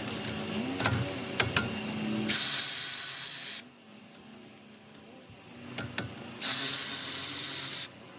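Milwaukee M12 cordless ratchet's motor run twice, each time for about a second and a half, a steady high whine over a loud hiss. A few clicks and knocks come before the first run.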